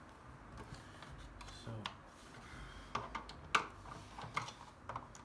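Irregular sharp clicks and taps of a screwdriver and plastic parts being worked on a washer dryer door, coming more often from about three seconds in.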